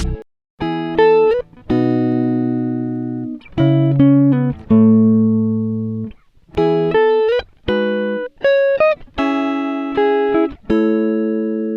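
Background music: guitar chords and single notes ringing out and fading, with short breaks between them and no drums or vocals.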